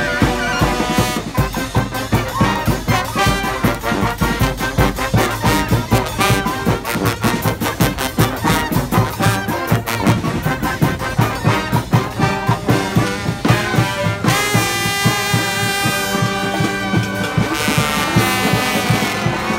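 A live street brass band with drums playing an up-tempo tune, horns over a busy drum beat. About two-thirds of the way through, the drumming thins and the horns hold long notes.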